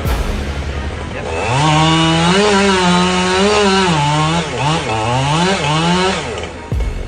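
Chainsaw revving up about a second in and running at high speed, its pitch dipping and recovering again and again as it cuts, then dropping away near the end.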